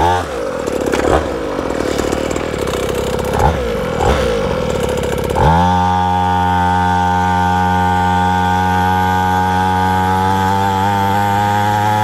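Small 50cc two-stroke pit bike engine, an automatic, revving up and down in short sweeps; about five seconds in it winds up to full throttle and holds one steady note, cutting off suddenly near the end.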